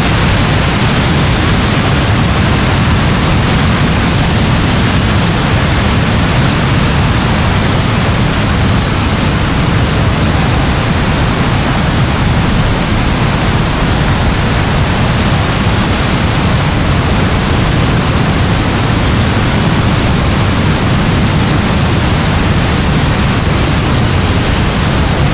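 Heavy thunderstorm rain: a dense, steady hiss with a constant low rumble underneath and no separate thunderclaps.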